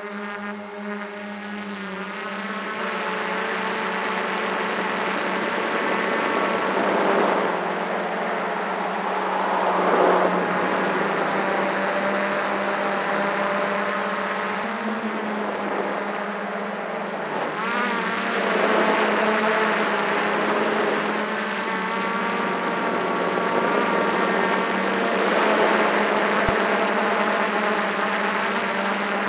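Quadcopter drone's motors and propellers buzzing steadily in flight, with a whine whose pitch drifts up and down as the motors change speed.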